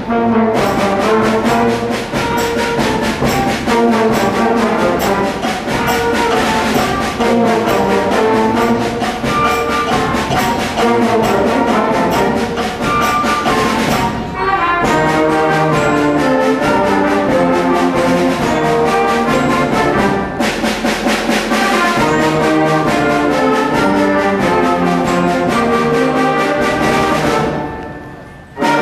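School concert band playing a brass-heavy passage with full ensemble, with a short break about halfway through and a quick fade near the end before the band comes back in loud.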